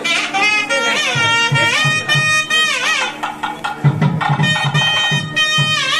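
Nadaswaram playing a held, ornamented melody with many sliding bends between notes. A thavil drum beats underneath and comes in more strongly about four seconds in.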